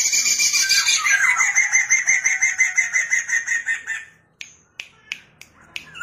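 Poksay mandarin, a laughingthrush, singing a fast, even run of repeated high notes, about seven a second, that stops about four seconds in. A few sharp clicks follow.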